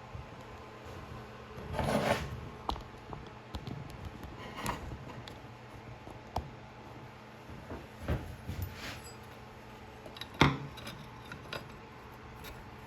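Scattered metal clicks and scraping of a hand tool on the chainsaw's spark plug as it is unscrewed from a Homelite Super XL, with a longer rough scrape about two seconds in and single sharp clicks every second or two. The plug turns out to be loose.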